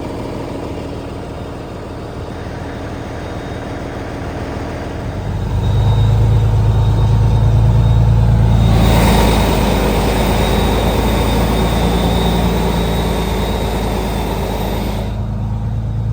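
Semi truck's diesel engine running, pulling harder and louder about five seconds in. A rush of noise joins it for several seconds, then drops away near the end.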